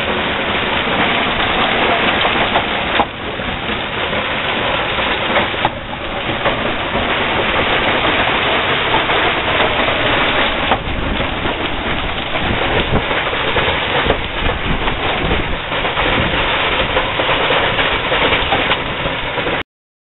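Hailstorm: hail and rain pelting down in a dense, constant clatter. It cuts off abruptly near the end.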